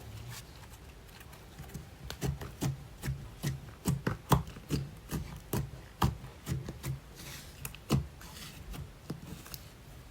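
Slime being squeezed and kneaded by hand, giving a run of wet clicks and pops a few times a second, starting about two seconds in.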